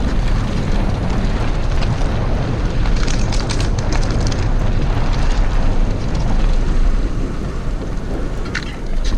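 Wind buffeting the microphone over the tyre noise of a full-suspension mountain bike riding on dirt, with a run of rattling clicks about three to four seconds in.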